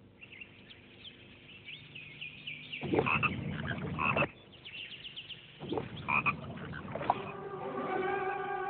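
Marsh ambience of frogs croaking, many short calls overlapping, with two louder bursts about three and six seconds in. Music with held tones fades in near the end.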